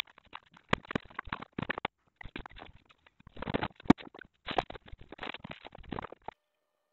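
Choppy run of knocks, clicks and rustles from household objects being handled and moved while a room is tidied. It stops abruptly near the end.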